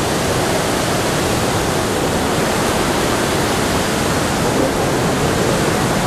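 Kuthumkal waterfall and the flooded river below it: a loud, steady rush of water. The falls and river are in heavy spate, swollen by water released from an opened dam after heavy rain.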